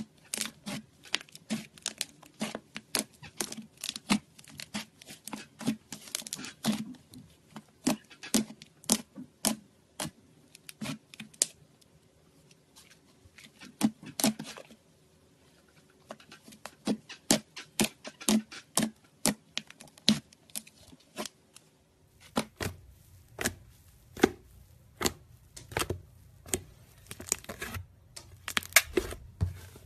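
Fluffy slime being poked, pressed and kneaded by hand, giving irregular sharp clicks and pops, a few a second, as trapped air bursts, with a short lull partway through. About two-thirds of the way in the clicking continues from a glossier slime being squished.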